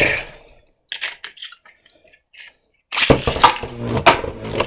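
Spinning-top Beyblades, a 3D-printed Hero Samuraizor and a Super Hyperion, clattering in a plastic stadium. There is a sharp click at the start and a few light taps. From about three seconds in comes a dense run of rapid clashing and rattling as the tops battle.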